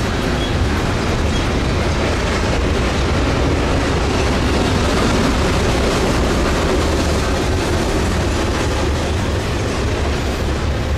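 Norfolk Southern freight train rolling past, with a steady loud rumble of the cars on the rails.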